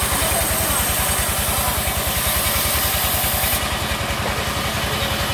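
A sawmill's engine running steadily with a fast, even beat.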